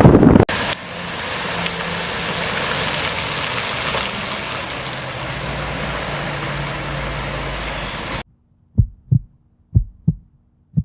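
Scania S730 truck's V8 engine running steadily, with a hum of road noise, for about eight seconds; it cuts off suddenly. Then come pairs of short, deep thumps like a heartbeat, three pairs by the end.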